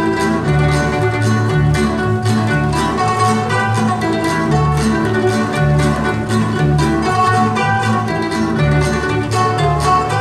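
A live folk string band of guitars and small mandolin-type plucked instruments with a double bass playing a lively dance tune. The plucked strings carry the melody over a steady, even bass line.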